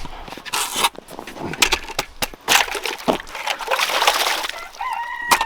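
Crunching, sloshing footsteps through snow or slush, in irregular steps. A goose honks near the end.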